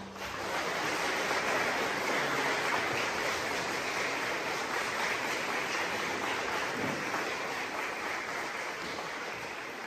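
Audience applauding steadily after the choir's final chord, fading slowly towards the end.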